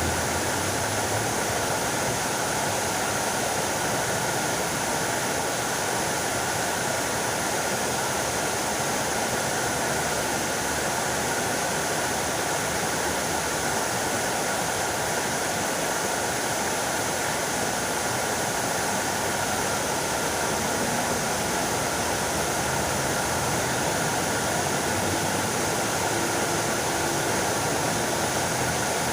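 Fountain water splashing steadily.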